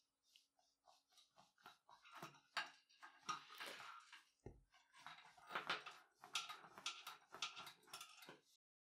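Faint, irregular scraping and rustling of a wooden board rolling a braided paracord knot back and forth against a tabletop, with one soft knock about four and a half seconds in.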